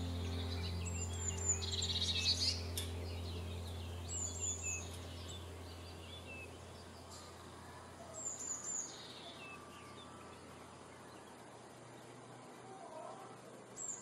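Small songbirds calling: short, high, thin descending notes repeated every few seconds, with scattered softer chirps. A low sustained music chord fades out under them during the first half.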